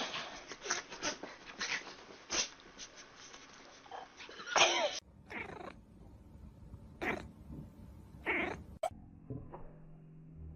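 A cat yowling, with a few separate drawn-out calls that bend in pitch, among lighter clicks and rustling.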